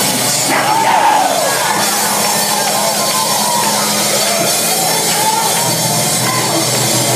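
Loud church band music with a drum kit and long held low notes, with congregation voices shouting over it.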